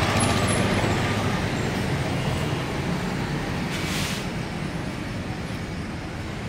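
Steady rumble of a running vehicle or road traffic, slowly fading, with a brief hiss about four seconds in.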